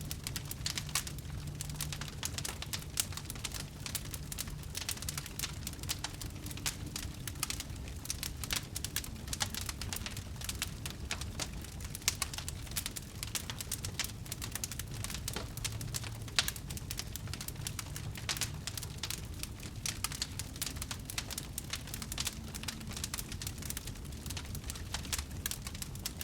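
Wood fire burning, with dense, irregular crackling and popping over a low steady rumble of the flames.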